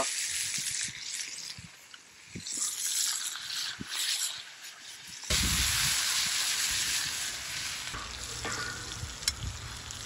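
Steak and whole garlic cloves sizzling in melted butter in a cast-iron skillet over a wood fire. About five seconds in the sizzle suddenly gets louder and fuller as the skillet is tipped so the butter pools for basting.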